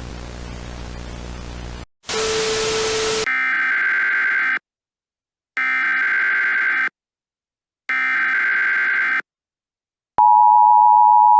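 Static hiss with a low hum that cuts off, a short burst of loud noise, then three Emergency Alert System SAME header data bursts, each about a second long with a second's gap between them. About ten seconds in, the loud, steady EAS two-tone attention signal begins.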